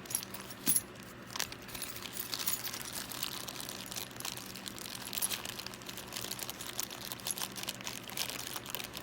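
Small pistol parts being handled and rummaged through: a steady scatter of light clicks, clinks and rustles, with one sharper knock under a second in.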